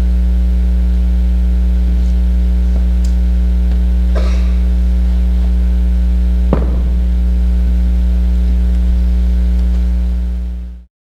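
Loud, steady electrical mains hum with a buzzing stack of overtones, with a few faint knocks and clicks on top and one clearer thud about six and a half seconds in. The sound cuts off abruptly near the end.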